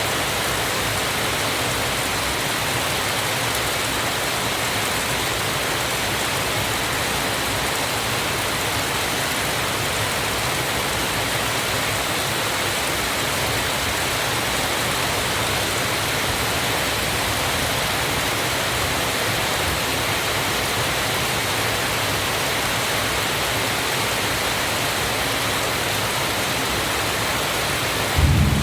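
Steady, even rush of falling water, a waterfall or heavy rain. Right at the end a low rumble begins.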